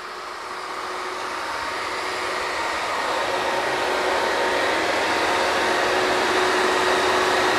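Drilling rig machinery running: a dense, steady mechanical noise with a faint humming tone, growing louder over the first few seconds and then holding steady.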